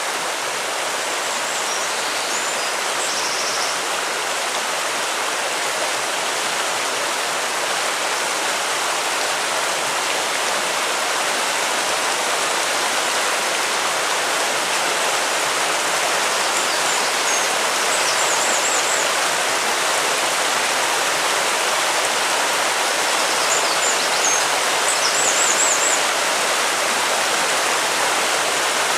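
A stream of running water rushing steadily, with faint high bird chirps and short trills a few times over it.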